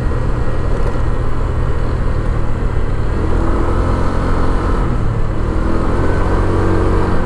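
Scooter engine running while riding along a cracked concrete road, under a heavy low rumble of wind on the microphone. A faint engine note comes through more clearly in the second half.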